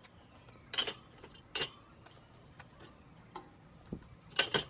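Metal flavor bars being lifted out of a Weber Genesis II gas grill's firebox, clinking against the grill about six times, with two clanks close together near the end.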